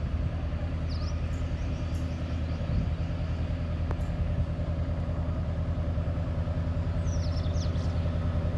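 Diesel train approaching: a steady low engine drone that slowly grows louder toward the end. Birds chirp briefly about a second in and again near the end.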